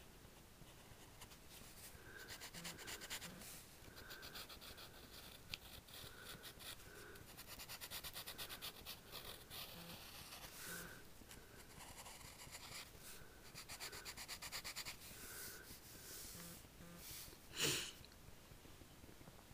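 Pencil scratching on lined notebook paper in quick, repeated sketching strokes, with a brief louder rustle near the end.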